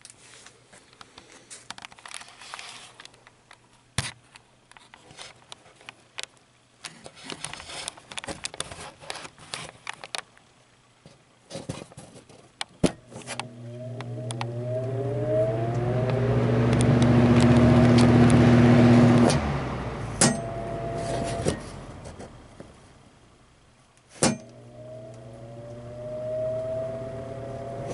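Clicks and knocks of the old Brentwood box fan being handled, then its motor switched on about 13 s in: an electric hum and a rising whine as the blades spin up to a loud rush of air. It is switched off with a sharp click about 20 s in and winds down, then clicks on again and starts spinning up near the end. The unoiled motor is slow to get up to speed.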